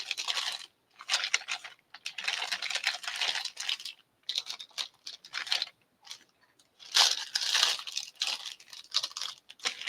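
Packaging crinkling and rustling as it is handled, in irregular bursts with short pauses between them.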